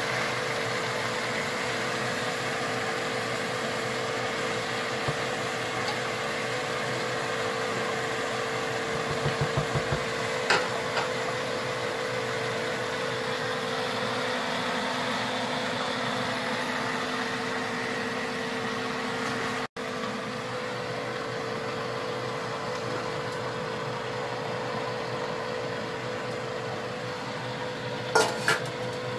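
Wooden spoon stirring a pan of lamb and vegetable curry, with a few knocks against the pan about ten seconds in and a quick pair near the end, over a steady hiss and hum with a held tone in it.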